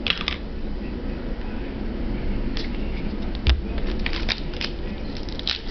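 Hands handling trading cards and card packs at an open box: light rustles and clicks, a single sharp knock about three and a half seconds in, then a quick run of rustling near the end. A steady low hum runs underneath.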